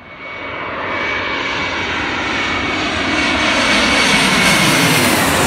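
Airbus A321 jet airliner passing low overhead on final approach with its gear down. The engine noise swells to loud, and a steady whine starts to fall in pitch near the end as the aircraft goes over.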